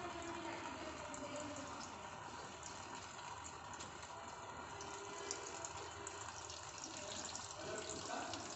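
Water being poured into the cooking pot over the raw chicken, a faint, steady pouring.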